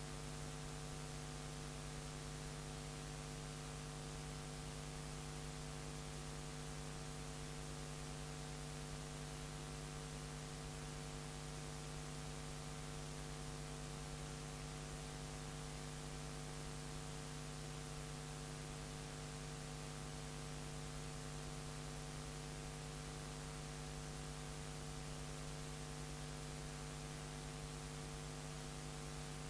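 Steady electrical mains hum, a low buzz with several even overtones, over a layer of hiss.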